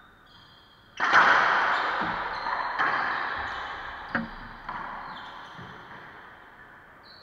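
Racquetball rally: a hard crack of ball on racquet about a second in, then about five more sharp smacks of the ball off racquets and walls. Each hit rings on in the echo of the enclosed court.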